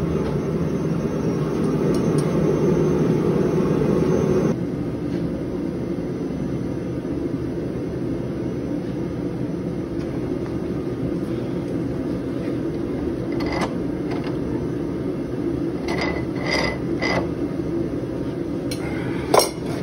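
Steady rushing noise of a forge running, with a few metal clinks in the last third and a sharp metal clank near the end as a red-hot steel canister is set into the jaws of a bench vise with tongs.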